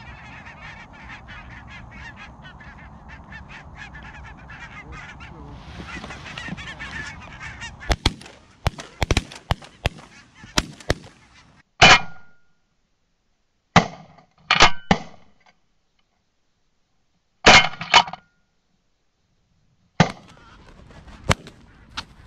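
A flock of geese honking continuously, then a string of shotgun shots from about eight seconds in: several fainter cracks, then loud ones singly and in quick pairs, with sudden gaps of dead silence between some of them.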